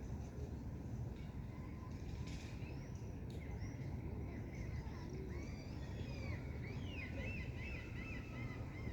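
Several birds chirping and calling over a steady low rumble, with a quick run of repeated, similar notes near the end.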